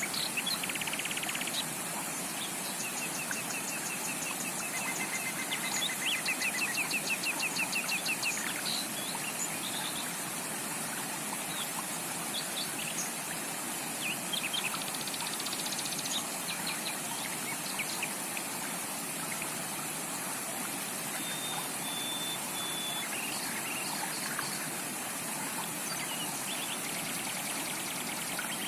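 Steady rush of a rainforest creek with tropical birds calling over it: rapid runs of repeated chirps in the first eight seconds or so, then scattered calls and a short whistle about two thirds of the way through.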